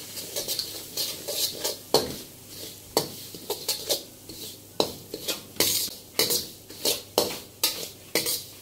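A flat metal spatula scraping and clacking against a metal karahi as semolina is stirred and roasted in oil, with irregular strokes about three a second.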